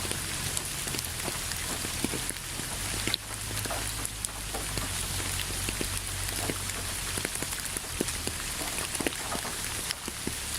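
Steady rain falling on a hard surface, an even hiss with many individual drops landing as distinct, irregular ticks.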